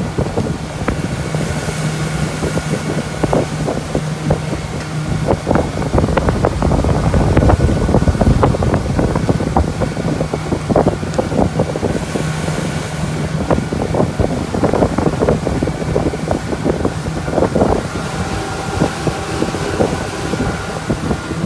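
A small open motorboat's engine running steadily under way, a constant low drone, with wind buffeting the microphone in irregular gusts.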